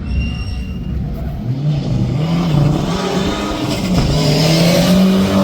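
An engine revving, its pitch falling and rising several times and climbing toward the end.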